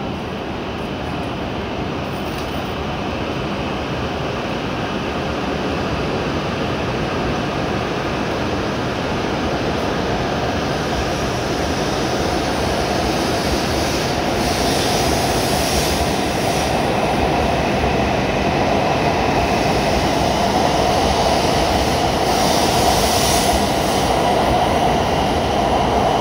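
W7 series Shinkansen trainset pulling out of the platform and gathering speed, its running noise growing steadily louder as the cars pass. A higher hiss swells briefly about halfway and again near the end.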